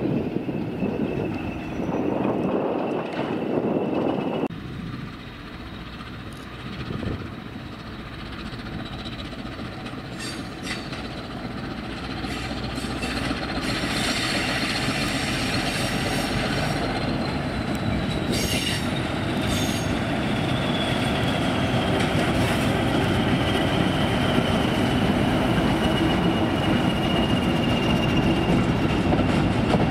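English Electric series 1400 diesel locomotive hauling a train of empty open steel scrap wagons past, the rumble of the train growing louder. The wagons roll by with wheel clatter and a long, thin, high wheel squeal that slowly falls in pitch over the second half.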